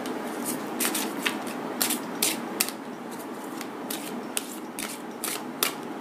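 A deck of oracle cards being shuffled by hand: an irregular run of crisp card snaps and rustles.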